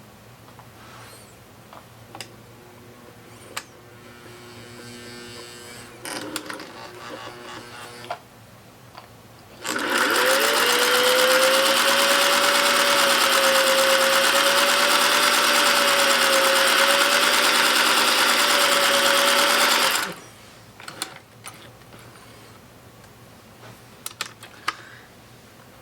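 Singer 600 Touch N Sew sewing machine sewing a chain stitch under motor power: a few faint clicks, then about a third of the way in the motor starts, its whine rising as it comes up to speed. It runs steadily for about ten seconds, then stops suddenly, followed by a few more faint clicks.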